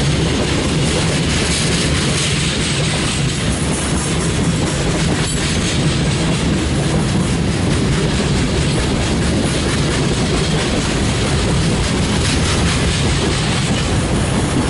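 Freight train's string of refrigerated boxcars rolling past close by: a steady rumble of steel wheels on the rails.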